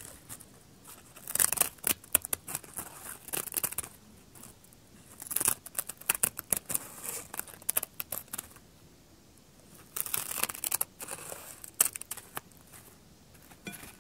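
Scissors cutting through a crisp sheet of dried laver (gim), each snip a crackly crunch, in three bouts of quick cuts with softer rustling between.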